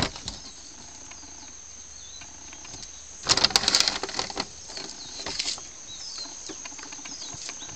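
A loud, brief rustling scuffle a little over three seconds in, with smaller rustles after it. Short falling bird chirps sound every couple of seconds over a steady, thin, high insect drone.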